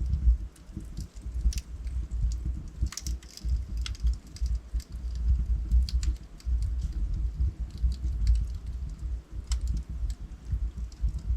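Wood fire burning in a fireplace: logs crackling with irregular sharp snaps and pops, a few clustered together, over a low steady rumble of the flames.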